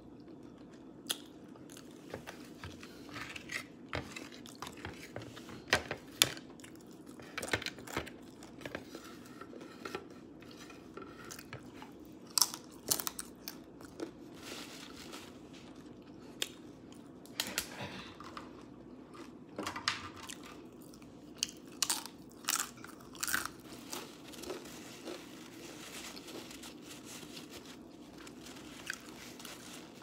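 Close-miked mouth chewing a mouthful of taco, with irregular crisp crunches and wet clicks.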